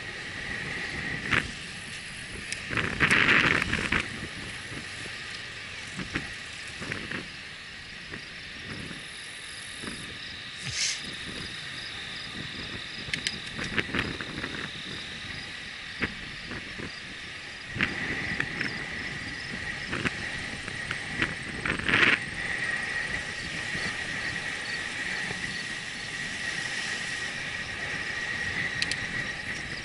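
Riding noise of a bicycle on a paved trail, picked up by a camera mounted on the bike: scattered rattles and clicks with wind on the microphone, and a steady high whine from about halfway through.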